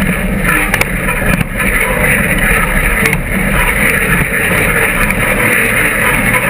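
Off-road buggy's engine running as it crawls over rough, rocky ground, heard from an onboard camera, with a few knocks from the chassis.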